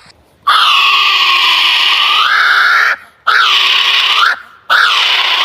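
A bird's loud, harsh screaming calls: one long scream lasting about two and a half seconds that bends upward in pitch near its end, then two shorter screams.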